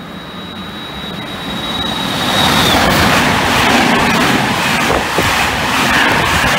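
Passenger train with white-and-red coaches running through the station at speed. A thin high whine grows louder as the train comes in and dips in pitch about two and a half seconds in, then the loud steady rush of the coaches going past.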